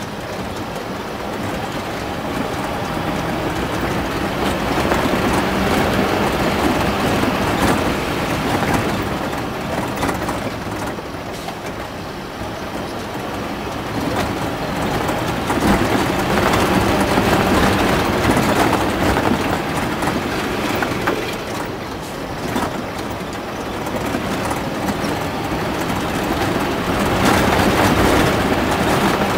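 Cab noise of a Bedford 4x4 truck driving on a rough dirt road: the engine running under a dense rattle and road noise. The level rises and falls in a few slow swells.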